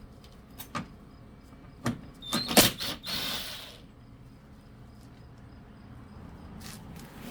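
Several clicks and knocks of hard objects being handled, the loudest cluster about two and a half seconds in, followed by a short hiss lasting under a second.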